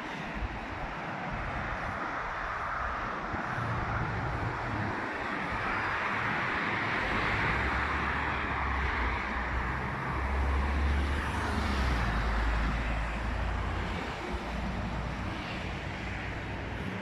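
Passing road traffic: a steady noise that builds over several seconds, with a low engine rumble strongest past the middle, then fades away.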